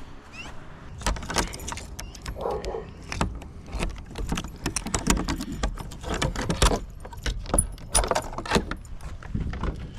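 A bunch of keys jangling, with many sharp clicks and knocks as a shed lock and door are worked open.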